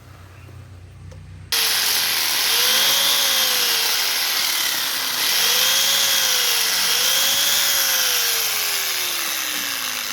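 Electric power tool cutting through the metal frame of a washing machine spinner motor. It starts suddenly about a second and a half in and runs loudly, its pitch dipping and rising several times as the cut loads it, then sinking slowly near the end.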